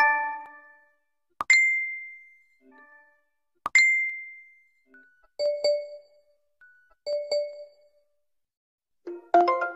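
A series of short electronic app notification sounds: a several-note chime fading out, then two identical single high pings, each starting with a click, then two identical lower dings, and near the end a quick run of bright notes begins.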